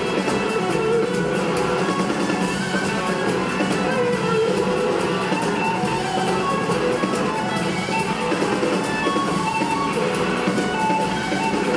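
Live rock band playing an instrumental jam, with no singing: an electric guitar lead with held notes over bass guitar, a drum kit with steady cymbal strokes, and keyboards.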